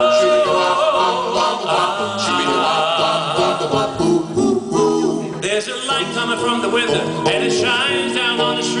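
Doo-wop vocal group singing a cappella in close harmony, several voices holding and shifting chords together.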